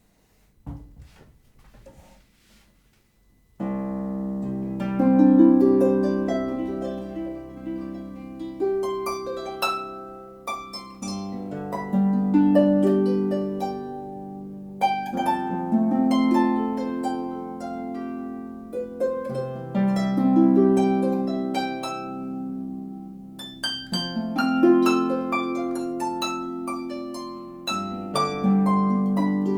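Music Makers Regency, a 34-string folk harp with cherry sides and a birch plywood soundboard, being played: a tune of plucked chords and melody over deep, long-ringing bass notes that change every few seconds. It begins a few seconds in, after a few faint clicks.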